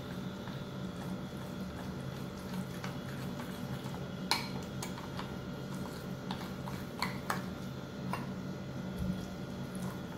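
Steel spoon stirring thick dosa batter in a glass bowl: soft scraping with scattered light clinks of the spoon on the glass, the sharpest about four seconds in and two more around seven seconds. A steady low hum runs underneath.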